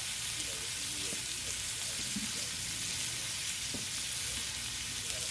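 Potatoes and onions frying in butter in a pan, a steady sizzle.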